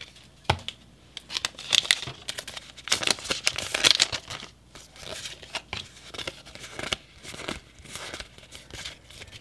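Foil Pokémon booster-pack wrapper crinkling and rasping as it is opened, busiest in the first half. After that come lighter clicks and rustles of the trading cards being slid out and handled.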